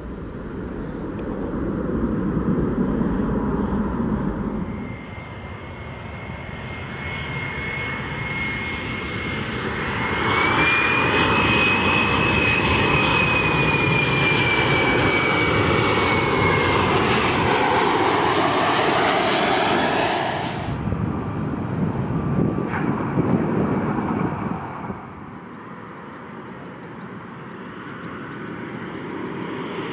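Aircraft engines running, with a high whine that climbs slightly about ten seconds in and then slowly falls as the sound swells. The loud, high part cuts off abruptly about two-thirds of the way through, leaving a quieter engine rumble.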